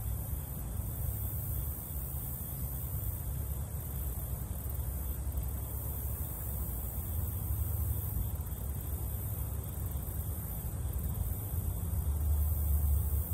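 Outdoor background ambience: a steady low rumble that swells slightly near the end, under a constant high hiss.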